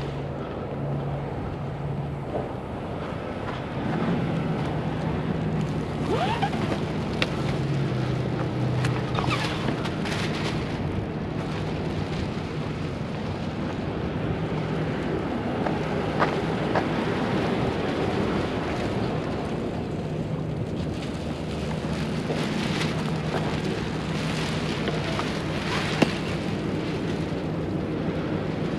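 Wind blowing across the microphone over a steady low engine hum, with a few light clicks and knocks.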